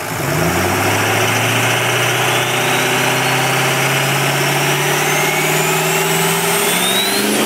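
A vehicle engine runs steadily and slowly climbs in pitch, with a high whine rising alongside it.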